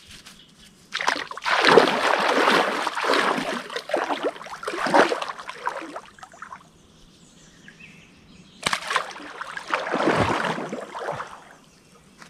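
Water splashing and sloshing as a person wades in and moves through it, in two bursts a few seconds each with a quieter pause between.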